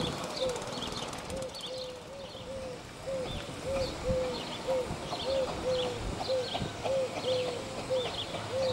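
A 15-inch gauge steam locomotive moving slowly, with a rhythmic squeak from its running gear about twice a second, over a low rumble.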